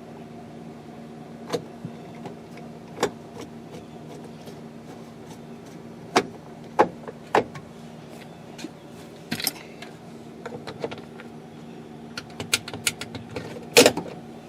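Scattered clicks and knocks of plastic interior door-trim parts being handled and fitted on a 2001 Chevy pickup door, with the loudest clatter near the end, over a steady low hum.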